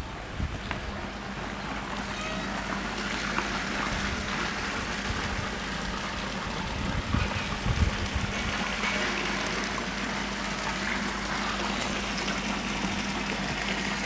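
Pool water feature: a stream of water from a wall spout pouring and splashing steadily into the swimming pool, with a steady low hum under it and occasional wind gusts on the microphone.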